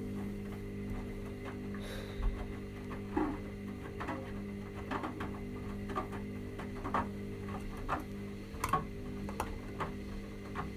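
Two washing machines, a Hoover and a Samsung, running a 40°C delicates cycle: a steady motor hum with a short knock or slosh about once a second as a drum turns.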